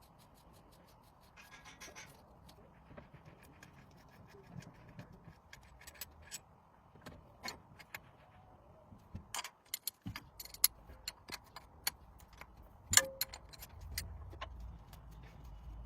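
Hand tools and small metal parts clinking and tapping irregularly during engine work. There is a brief scrape early on, and one sharper clink near the end rings briefly.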